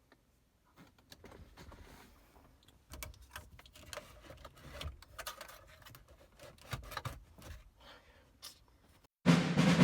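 Faint clicks, scrapes and rattles of a flathead screwdriver working at plastic dashboard trim. Near the end, loud orchestral music with timpani starts suddenly.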